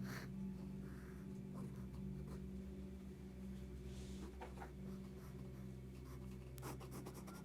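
Pencil sketching on paper: short, scattered scratching strokes and light ticks, faint over a steady low electrical hum.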